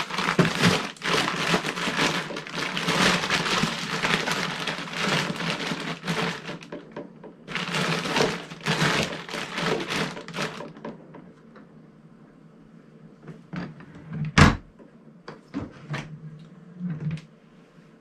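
Plastic food packaging crinkling and rustling for about ten seconds as it is packed into a portable fridge-freezer's wire basket. Then come a few small knocks and one loud thunk about fourteen seconds in as the freezer lid is shut.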